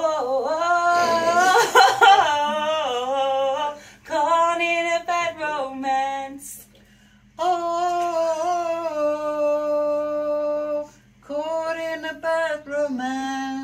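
A woman singing unaccompanied: phrases of melody with long held notes, broken by short pauses.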